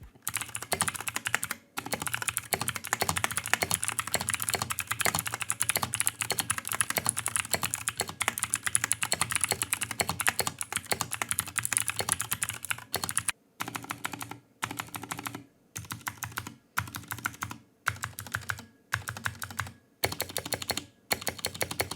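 BOYI 60% mechanical keyboard with clicky Cherry MX Blue switches being typed on fast and continuously. About 13 seconds in, the typing gives way to separate short bursts of key clicks roughly once a second.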